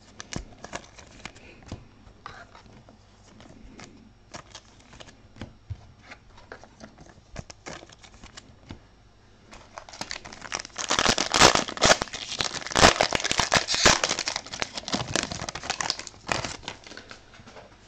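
Light clicks and handling of trading cards, then, from about ten seconds in, several seconds of loud crinkling and tearing as a trading-card pack wrapper is torn open.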